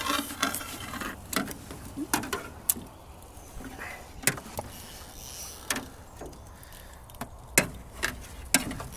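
Scattered sharp knocks and clicks, about seven over the stretch, over a low rumble: hands and gear knocking against an aluminum boat's hull while a shot fish is hauled in on the arrow line.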